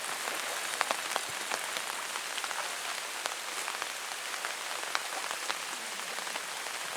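Steady rain falling, an even hiss dotted with many short, sharp ticks of individual drops striking close by.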